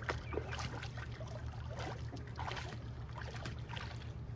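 Water splashing and sloshing as a child paddles through an above-ground pool, in short irregular splashes over a steady low hum.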